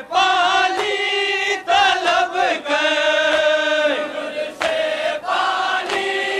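A Shia noha, a Muharram lament, chanted by men's voices in long held, wavering lines, with sharp strikes every second or so.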